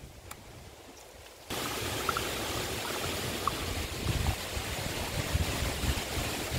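Soapy wash water draining out of a plastic tub through a plastic ball valve at its base. The flow starts suddenly about a second and a half in and then runs steadily.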